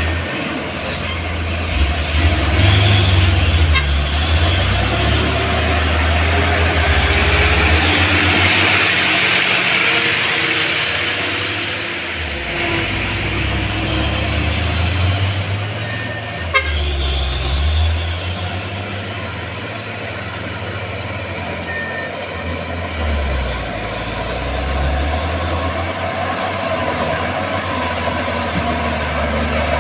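Diesel dump truck engines running as heavy trucks drive slowly along a dirt road, a deep rumble that swells as they pass, loudest in the first ten seconds. A thin high tone comes and goes several times over the engine sound.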